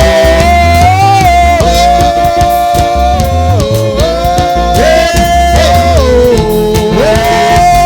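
Live gospel praise music: a voice holding long sung notes, sliding into each one, over a band with heavy bass and a steady beat.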